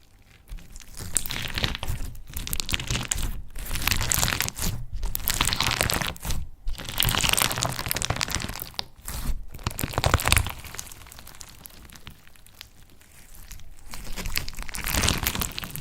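Slime being squeezed and pressed by hand, crackling and crunching in bursts with short pauses, quieter for a few seconds before a last burst near the end.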